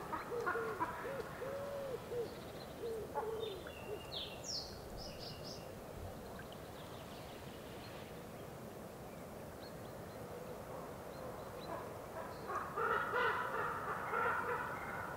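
Common ravens calling at a carcass: runs of short, hollow, hooting notes, several in quick succession near the start and again near the end, with a few high squeaky notes in between.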